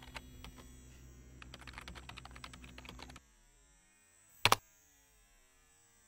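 Typing on a computer keyboard: a quick run of key clicks that stops a little after three seconds in. About a second later comes one sharp double click, much louder than the typing.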